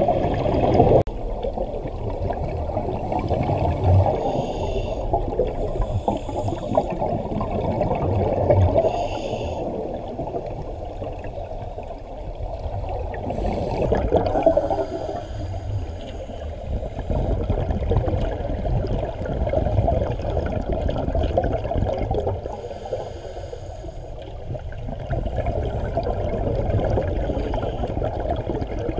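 Scuba divers' regulator breathing and exhaled bubbles heard underwater: a muffled rushing and gurgling that swells and eases every five or six seconds with each breath.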